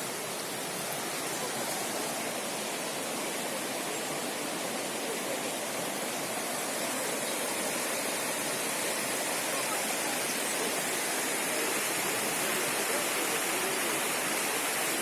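Rushing water of a mountain stream, a steady hiss that grows a little louder after about seven seconds.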